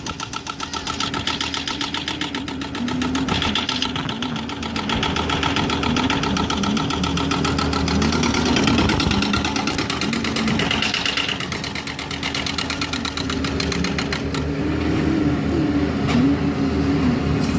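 Engine of construction machinery running steadily with a rapid, even throb.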